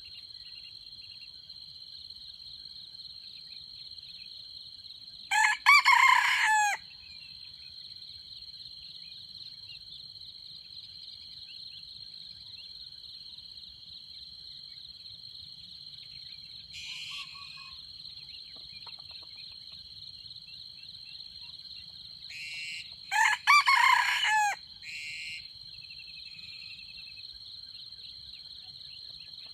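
Red junglefowl rooster crowing twice, two short crows about 17 seconds apart, over a steady high drone of insects.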